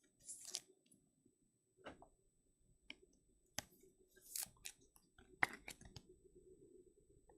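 Faint handling of trading cards: a scatter of short clicks and brief brushing sounds as cards are slid and flipped by hand.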